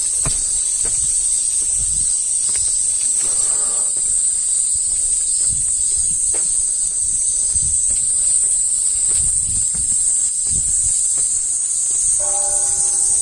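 A steady, high-pitched insect chorus fills the air, with soft thuds of footsteps climbing stone steps beneath it. A short pitched sound comes in near the end.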